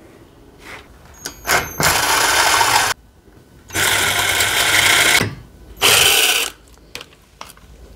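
Cordless drill with a metal-drilling bit boring through the aluminium frame of a solar panel, in three bursts of about a second each.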